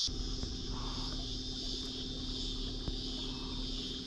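Cicadas droning steadily, with a low, steady hum and rumble underneath that starts at the outset.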